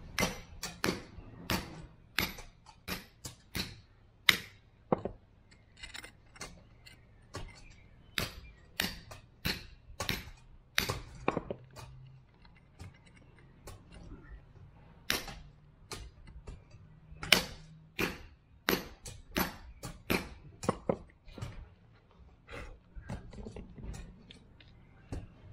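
Club hammer striking a cold chisel into the mortar bed beneath lifted patio slabs: dozens of sharp, slightly ringing metal-on-metal strikes in runs of several, about two a second, broken by a few short pauses.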